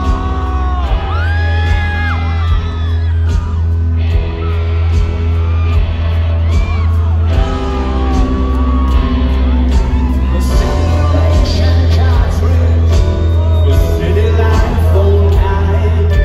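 Live rock band heard from the audience in a large hall: deep sustained bass notes changing every couple of seconds, drums and keyboards, with a singer's voice and whoops and yells from the crowd.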